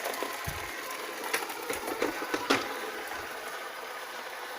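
Alfawise V8S robot vacuum cleaner running with a steady whirring hiss, with several clicks and knocks in the first two and a half seconds.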